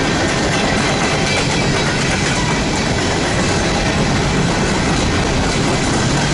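Norfolk Southern coal train's steel hopper cars rolling past at close range: a steady, loud rumble of wheels on the rails, with clickety-clack.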